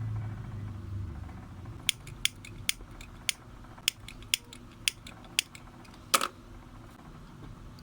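Small hand tools and wire being handled during a cord splice: about ten sharp, irregular clicks over three and a half seconds, then a louder click with a brief ring about six seconds in.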